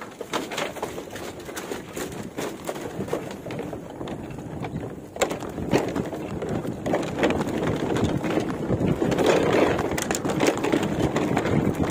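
Fat-tyre bicycle rolling over a woven bamboo bridge deck, the loose bamboo slats clattering steadily under the tyres, louder from about five seconds in.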